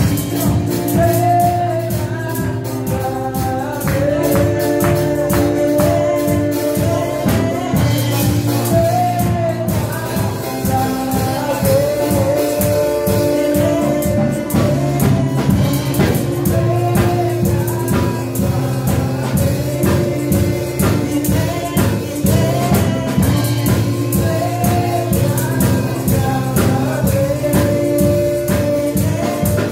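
Live gospel worship song: women's voices singing over sustained Yamaha electronic keyboard chords, with a steady beat on a drum kit.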